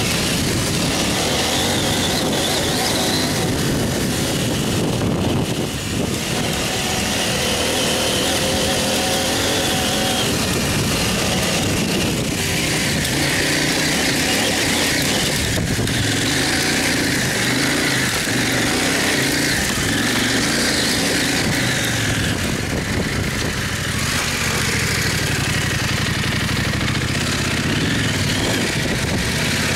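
Dirt bike engine running as it is ridden, heard from on the bike, its pitch rising and falling with the throttle.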